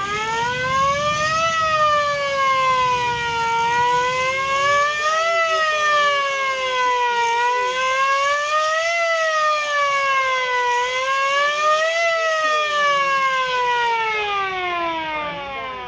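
Wailing siren, its pitch rising and falling in a slow wail about every three and a half seconds, then winding down steadily near the end.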